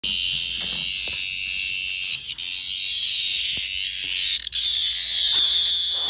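Cicadas buzzing: a loud, steady, shrill high drone that breaks off briefly about two and a half and four and a half seconds in.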